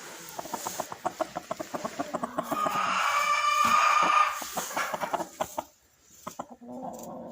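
Silkie rooster clucking in a rapid run of short pulses, then a drawn-out call of about a second and a half, then more quick clucks. After a brief pause, a steadier, lower sound begins near the end.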